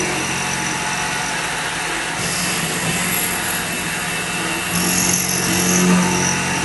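X2 mini milling machine running, its end mill cutting into the workpiece with a steady motor hum. A higher-pitched cutting hiss joins about two seconds in and grows stronger near five seconds.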